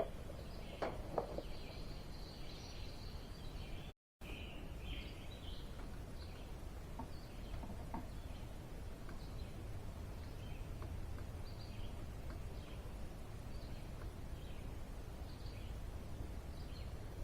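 Quiet outdoor ambience: a steady low rumble with faint bird chirps scattered throughout and a few light clicks about a second in. The sound drops out completely for a moment about four seconds in.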